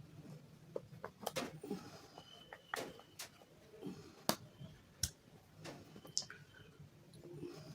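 Close-miked crunching of a brittle bar being bitten and chewed: a string of separate sharp cracks, about one every half second to a second.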